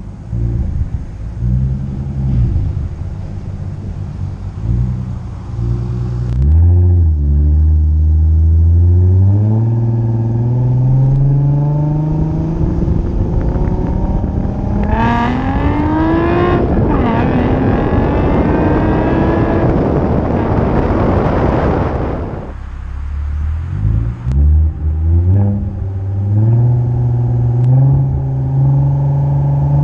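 Ford Mustang 3.7 L V6 with a Flowmaster Outlaw exhaust and X-pipe, heard from a camera on the outside of the car. It pulls away about six seconds in, then accelerates hard from about halfway, its rising note broken once briefly. It lifts off sharply a little past two-thirds through and picks up speed again near the end.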